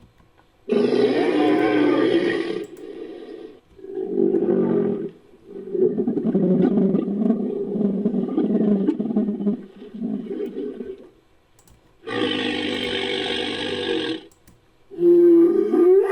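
Made-up Edaphosaurus creature calls layered from camel, bull and walrus recordings: a series of about five deep, loud calls separated by short pauses, the longest lasting about five seconds in the middle.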